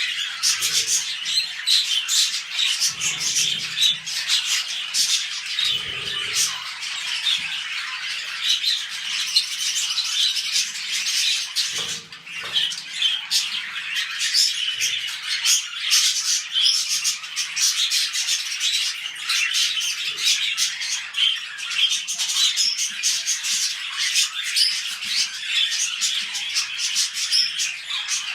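Budgerigars chattering: a continuous, rapid run of warbling chirps, clicks and squawks, with a brief lull partway through.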